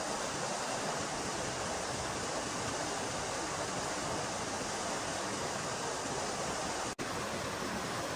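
Steady, even rushing noise, broken by a split-second dropout about seven seconds in.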